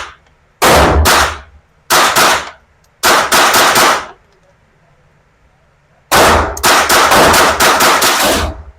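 A GSG .22 LR semi-automatic rifle firing a 22-round magazine. Shots come in pairs and small groups for about four seconds, then after a two-second pause a fast string of about ten shots.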